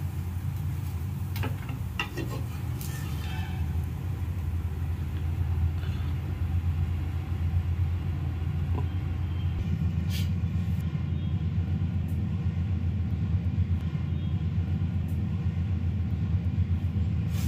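Steady low rumble of a running cooktop, with a few light clicks and scrapes of a steel spatula against the dosa pan in the first few seconds and again around ten seconds in.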